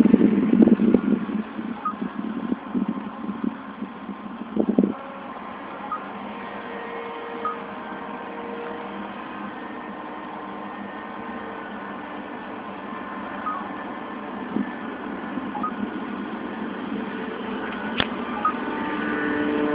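Motor and propeller of a small RC foam flying wing droning in flight, its faint tone shifting in pitch as the plane flies about. Rough low bursts on the microphone in the first five seconds, and a single sharp click near the end.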